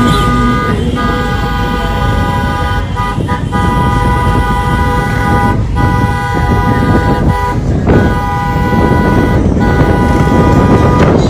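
Car horns held down in long, steady blasts, broken by short gaps every one to two seconds, over the low rumble of a car driving.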